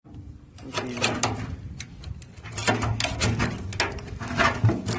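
Irregular metallic clanks, knocks and rattles of a car's gas tank and its fittings being handled, in loose clusters.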